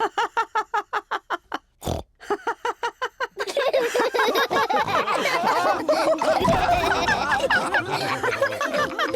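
Cartoon pig family laughing. It starts as a rapid run of short, even laughs, and about three seconds in it swells into several voices laughing together at once.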